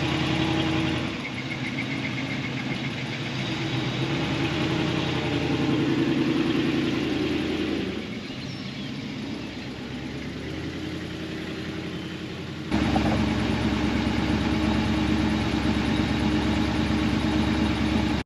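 Vehicle engine running steadily, as from driving; about 13 seconds in it jumps suddenly louder and deeper.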